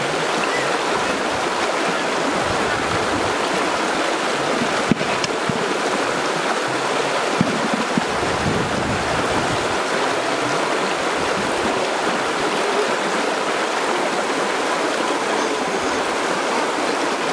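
Shallow stream rushing steadily over rocks, with one sharp click about five seconds in.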